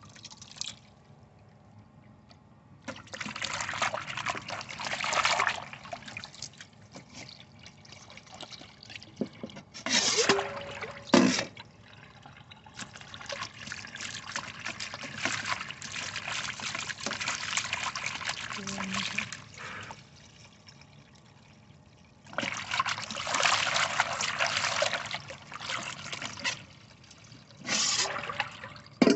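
Water from a garden tap running into a stainless steel basin and splashing as a hand works dyed cloth in it to rinse out the chestnut dye, in several spells of a few seconds each. Near the end the basin of brown dye water is tipped out and pours away.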